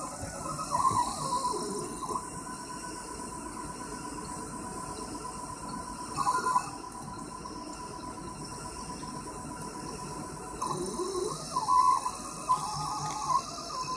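Stepper motors of a 3020 desktop CNC machine driving its axes: a steady whine with louder bursts of gliding, warbling tones about a second in, around six seconds in, and again between eleven and thirteen seconds in. The drives are still untuned, and the owner calls them noisy.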